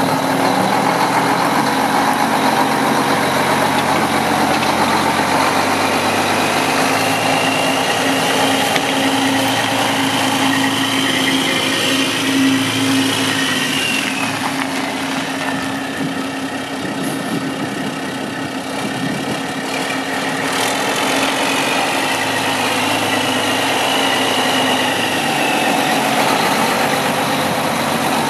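Diesel engine of a 1999 Mack CH613 tandem-axle day-cab tractor idling steadily, dipping a little in level around the middle.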